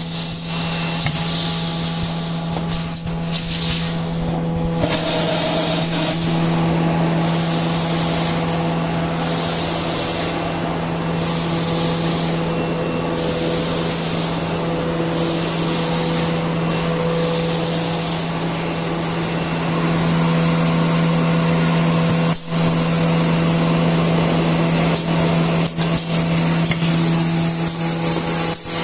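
Automatic facial-tissue multipack bagging machine running: a steady machine hum with short hisses repeating about every one and a half to two seconds through the middle, and a few sharp clicks later on.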